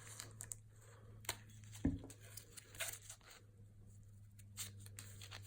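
Quiet handling noises: scattered small clicks and light rustling, with one dull knock about two seconds in, over a low steady hum.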